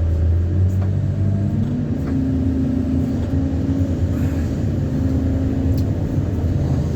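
Engine running steadily: a low hum, joined about a second and a half in by a higher tone that rises slightly and then holds.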